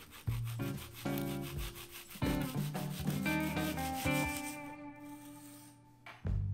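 A long knife sawing back and forth through a bar of crisp honeycomb toffee on a wooden board, a rapid scraping crunch that fades out about two-thirds of the way through, over background guitar music.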